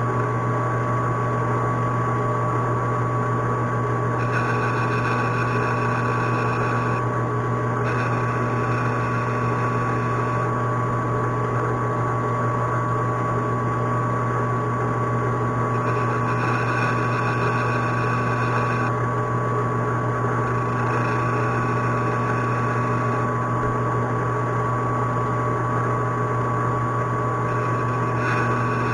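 Metal lathe running steadily while small chamfers are cut on the edges of parts: a constant motor hum with a fixed high tone, and a higher ringing added in stretches of about three seconds, five times.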